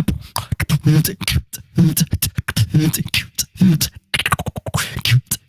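Male beatboxer performing a fast beatbox pattern: sharp click and hiss snares with short hummed bass notes, briefly breaking off about four seconds in.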